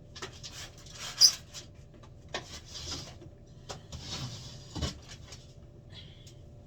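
Large cardboard product box being pulled out and handled, scraping and rustling, with a sharp knock about a second in and a heavier thud near five seconds.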